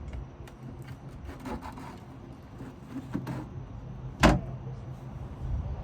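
Light handling sounds on a fibreglass boat deck, with one sharp, briefly ringing knock about four seconds in, over a steady low hum.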